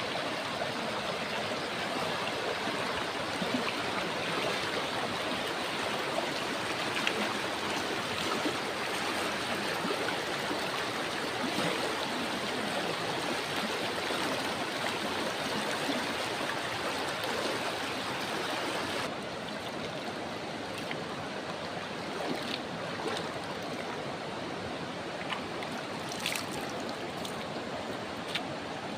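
River water flowing, a steady rushing that drops slightly softer and duller about two-thirds of the way through.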